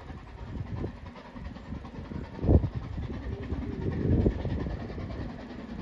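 Distant steam locomotive of the Brocken narrow-gauge railway running through the forest, heard as a low rumble. Irregular low gusty thumps sound on the microphone, the strongest about two and a half seconds in.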